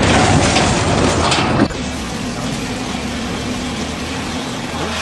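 Machinery or engine noise: a loud, noisy stretch for the first second and a half that cuts off abruptly, then a steadier running sound with a faint low hum.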